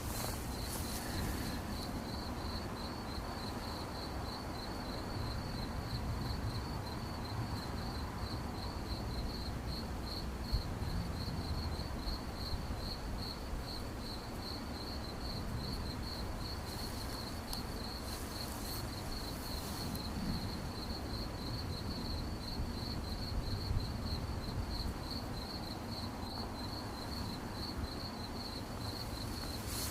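Crickets chirping in a continuous high, evenly pulsed trill, with a steady low rumble underneath.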